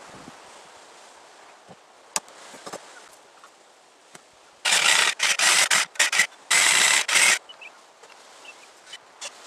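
Wood being sawn: a run of short, loud cutting strokes about halfway through, then one longer stroke of about a second. A few faint knocks come before it.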